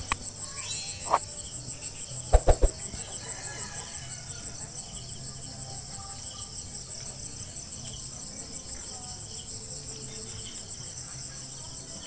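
High-pitched insect trill pulsing steadily and evenly. A few sharp knocks stand out about one second in and again about two and a half seconds in.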